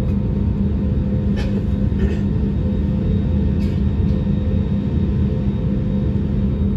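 Cabin noise of an Airbus A320-family jet airliner on the ground: a loud, steady rumble of the engines with a steady hum, heard from a window seat over the wing. A few faint knocks come through in the first few seconds.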